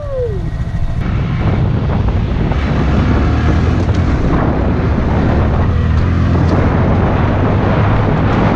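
Honda Grom's 125 cc single-cylinder engine running under way, a steady low drone, with heavy wind rush on the microphone.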